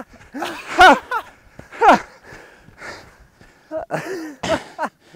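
A man's breathless voice: short gasps and grunts, several sliding down in pitch, in three clusters with quiet between them.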